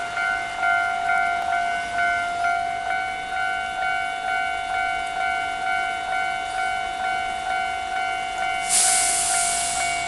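Japanese level-crossing warning bell ringing its electronic ding-ding tone, about three strikes every two seconds, with the barriers down and lamps flashing: the signal that a train is approaching. A loud rushing hiss comes in near the end.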